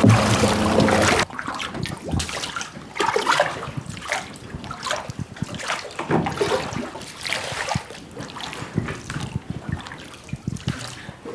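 Water trickling and splashing in irregular small drips and splashes. About a second in, a louder steady humming noise cuts off.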